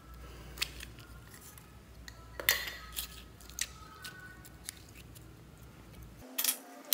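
A piece of clear slime being squeezed and worked between the fingers, giving off sharp, irregular clicks and crackles, with a louder cluster near the end.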